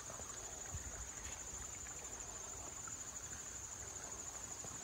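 Insects, such as crickets, trilling in a steady chorus: one high-pitched, finely pulsing trill.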